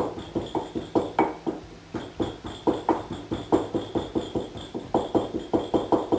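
Wooden pestle pounding in a glazed ceramic mortar, crushing fried garlic, spices and cloves into a majado: a run of sharp knocks, about three to four a second.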